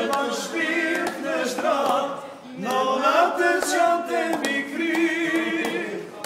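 A group of men singing together loudly, unaccompanied, in phrases with a short break about two and a half seconds in; near the end they hold wavering notes.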